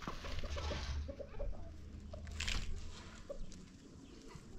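A few soft hen clucks over a low steady rumble, with a short rustle about two and a half seconds in.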